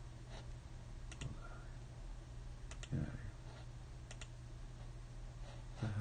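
A few sharp clicks from a computer mouse and keyboard, scattered about a second apart and some in quick pairs, as tracks are selected in a music program.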